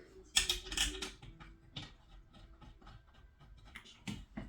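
Irregular small clicks, taps and rattles of hand tools and parts being handled during a boiler repair, with a louder scraping clatter about half a second in.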